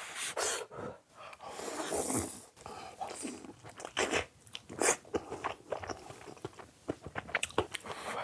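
Close-miked eating sounds of a person biting into a large, soft king dumpling and chewing it: irregular wet mouth clicks and smacks, with a quick run of small clicks near the end.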